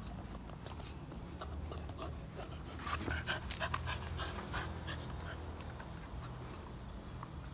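A three-and-a-half-month-old pit bull puppy panting as it tugs at a rubber bicycle tire, with a cluster of scuffs and clicks from about three to four and a half seconds in.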